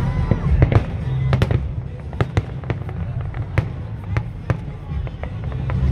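Fireworks going off in a quick, irregular string of sharp bangs and cracks, over music with a heavy bass line.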